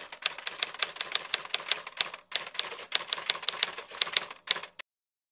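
Typewriter keystroke sound effect: rapid, irregular key clicks, pausing briefly about two seconds in, then stopping abruptly near the end.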